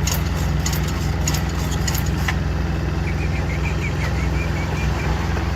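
An engine running steadily at an even pitch, with sharp clicks and rattles over it in the first two seconds.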